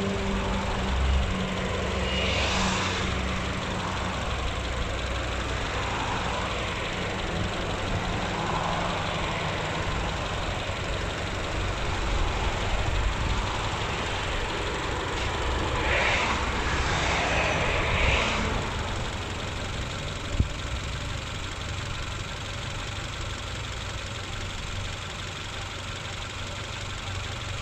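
Mitsubishi Lancer's 2.0-litre 4G94 four-cylinder petrol engine idling steadily, warmed up after running for a quarter of an hour. A rushing noise swells up briefly about two seconds in and again around sixteen to eighteen seconds, and there is a single sharp click near twenty seconds.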